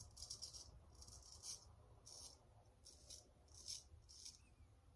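Straight razor blade scraping through lathered stubble on the chin in short, light strokes: a faint series of brief raspy scrapes, roughly two a second.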